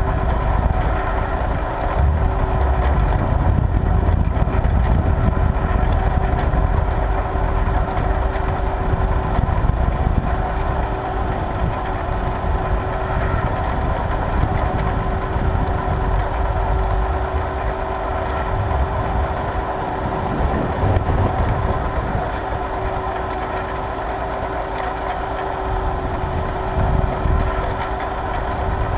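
Tractor engine running steadily while pulling a plough: a constant low rumble with a steady hum held over it.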